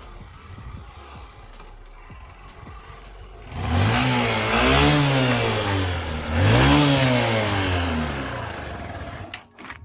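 Honda Shine motorcycle's single-cylinder four-stroke engine running low, then revved hard twice about three and a half seconds in, the pitch climbing and falling each time before it dies away near the end.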